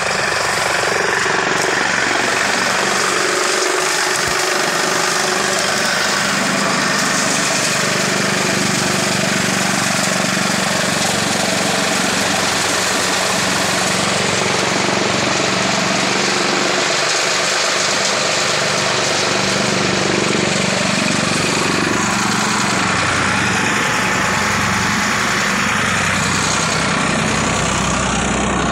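Tractor-driven chaff cutter working under load: the Farmtrac tractor's diesel engine runs steadily while the cutter chops dry stalks and blows out the chaff, a loud, unbroken mechanical din.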